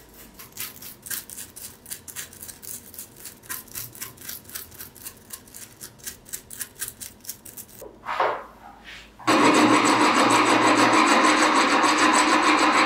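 Stiff bristle brush scrubbing rust off steel end-cutting pincers in quick, even strokes, about three a second. About nine seconds in, a much louder, continuous rasping starts suddenly as a flat file is worked over the pincer jaws.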